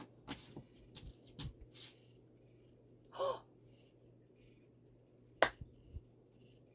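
Small clicks and handling knocks from fumbling with a small plastic electronic device and its buttons: several in the first two seconds, a brief pitched sound about three seconds in, and one sharp click about five and a half seconds in.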